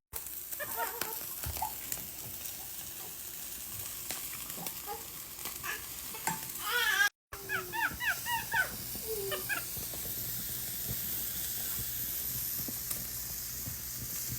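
Steady sizzling hiss of food cooking on a small grill. About six to nine seconds in, a run of high, squeaky chirps sounds over it, broken by a brief dropout.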